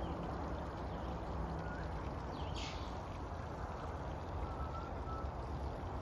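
A steady low rumble of outdoor background noise. About two and a half seconds in comes a short high-pitched call, and there are a few faint thin chirps around it and near the end.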